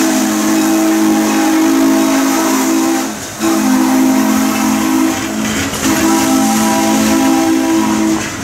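Shay steam locomotive's whistle blowing three long blasts, several notes sounding together, as the train rolls past with a steady hiss.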